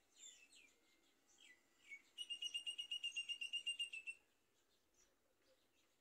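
Bird calls: a few quick, high, falling chirps, then a rapid, even trill of about ten notes a second lasting about two seconds.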